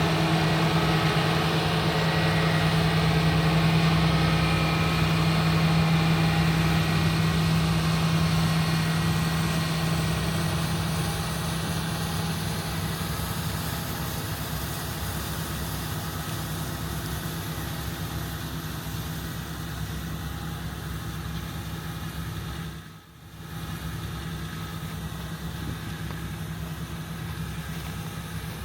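John Deere 8270R tractor's diesel engine running with a steady hum, loudest at first and easing off gradually after about ten seconds. The sound briefly drops out about 23 seconds in.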